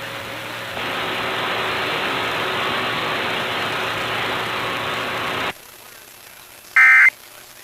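Broadcast hiss like radio static, with faint steady tones in it, cuts off abruptly about five and a half seconds in. Near the end comes a short burst of Emergency Alert System digital data tones.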